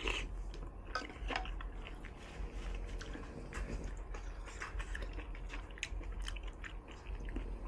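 Close-miked mouth sounds of someone eating hot pot food such as tofu and noodles: chewing with many irregular small wet clicks and smacks.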